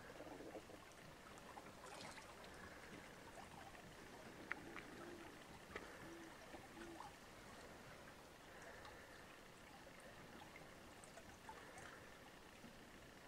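Near silence: a faint steady hiss with a few soft clicks.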